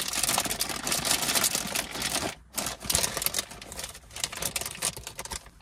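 A crinkly bag of maple-flavoured sweet popcorn being handled and opened: dense, rapid crackling, with a short pause about two and a half seconds in and dying down near the end.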